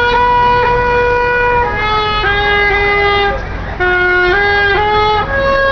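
Street saxophone playing a slow melody: a long held note, then a falling run of shorter notes, a brief break, and a rising phrase, over low traffic rumble.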